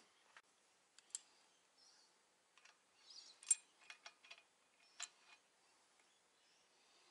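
Faint, irregular clicks and taps of oil squirter bolts and a hand tool against an RB25DET engine block as the squirters are threaded in by hand. The sharpest click comes about three and a half seconds in.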